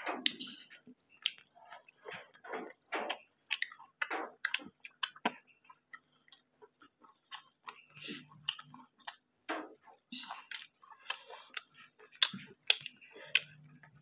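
Close-up chewing and lip-smacking of people eating rice and beef with their hands: a string of short, wet clicks and smacks at uneven intervals.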